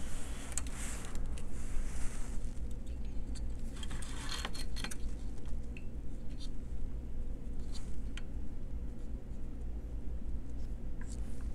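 Light rustling, scraping and small clicks as hands handle and position a circuit board on a cutting mat, over a steady low electrical hum.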